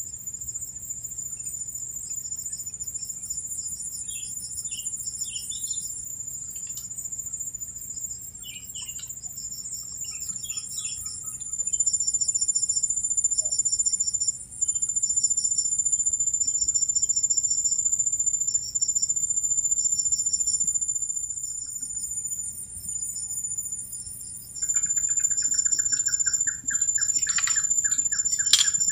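Insect chorus at a reedy swamp: a continuous high-pitched drone with repeated trains of rhythmic pulsing chirps, and a few short bird chirps. A lower, rapid pulsed call joins near the end, along with one sharp click.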